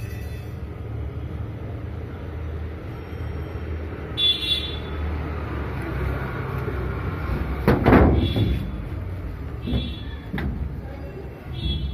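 A steady low rumble in the background, with a loud knock on a metal door about eight seconds in and a few lighter knocks after it, as a small child bumps against the door while sitting down.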